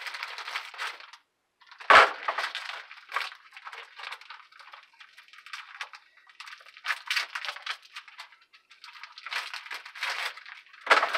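Clear plastic fish packaging being handled and torn open: crinkling and rustling in irregular bursts, with one sharp crack about two seconds in, the loudest sound.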